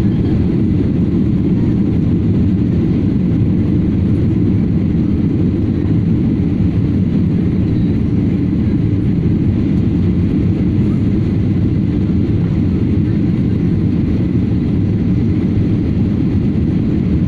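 Airplane noise: a steady, even low rumble with no rise or fall.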